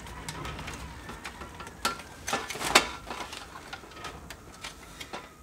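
Clicks and knocks of a USB front-panel circuit board on its bracket being pushed and fitted into the front panel of a Cooler Master CM690 II computer case. Several sharp clicks, the loudest two around the middle.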